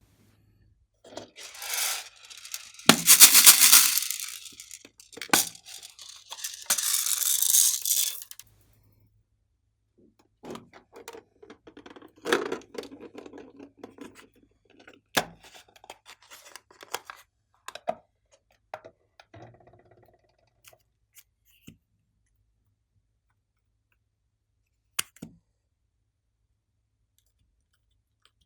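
Slime being handled and mixed with added items: several seconds of loud crinkling, tearing noise, then scattered sharp clicks and shorter soft squishy noises that thin out towards the end.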